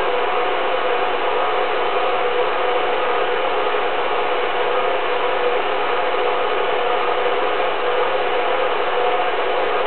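Home-movie film projector running steadily: an even mechanical noise with a few constant tones, unchanging throughout.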